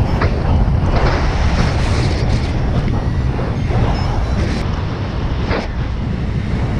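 Airflow rushing over the camera microphone of a paraglider in flight: loud, steady wind noise that swells and eases in gusts.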